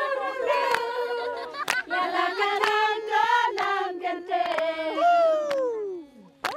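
A group of voices singing together, with held notes and pitch slides and sharp clicks here and there. About five seconds in, one voice slides down in a long falling note, and the sound briefly dies away near the end.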